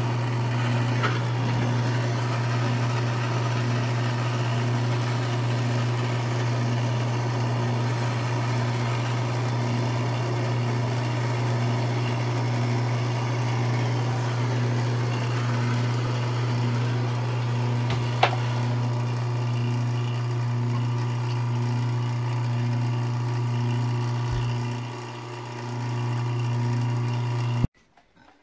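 Steady low machine hum, with a single sharp click about 18 seconds in and a brief dip about 25 seconds in; the hum cuts off abruptly near the end.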